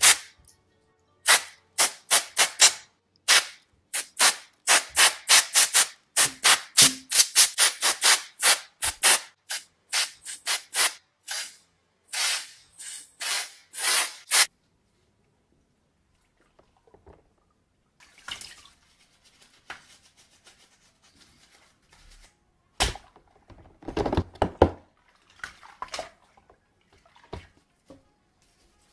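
Compressed-air duster can sprayed through its straw nozzle onto a dusty motherboard in many short, sharp bursts, one quickly after another. After a pause come fainter water sounds as the board is washed by hand in a tub of soapy water, with a single knock and some louder sloshing.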